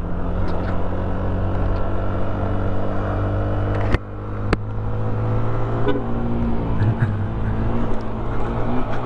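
Motorcycle engine running steadily at low speed, with road and wind noise. A sharp click about four seconds in, where the sound briefly drops, and another half a second later.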